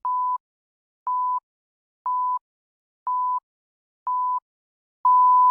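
Countdown timer beeping: five short beeps at one steady high tone, one each second, then a longer beep about five seconds in.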